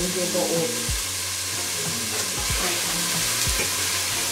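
Wooden spoon stirring food in a stainless-steel pot on the stove, over a steady sizzling hiss, with a few low thumps of the spoon against the pot.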